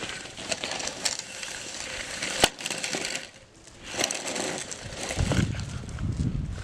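Sandbags being handled and dropped into place: gritty crunching and scraping with scattered knocks, one sharp knock about two and a half seconds in, and heavier crunching and thudding near the end.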